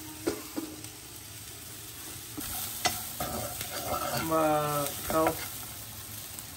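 French fries deep-frying in hot oil with a steady sizzle, a spoon stirring and knocking in the pan a few times. A short pitched sound stands out about four seconds in.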